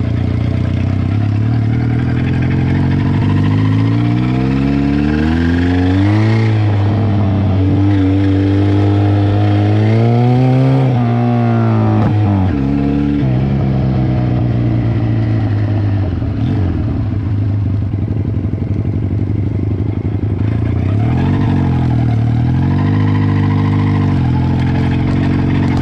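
Cafe racer motorcycle engine heard on board, revving up twice with a drop in pitch at each gear change, about six and about eleven seconds in. It then runs steady, with a shorter rise and fall near the end.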